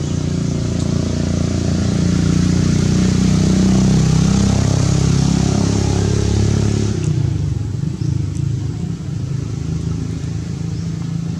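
A motor vehicle's engine running, growing louder over the first few seconds and easing off about seven seconds in, then carrying on more quietly.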